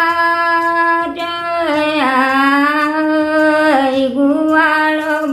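An elderly woman singing an old Nepali folk song solo and unaccompanied, holding long notes and sliding down in pitch between phrases.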